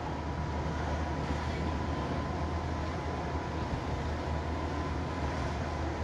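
Car driving along a road: a steady low engine and road rumble with a faint steady high tone running through it.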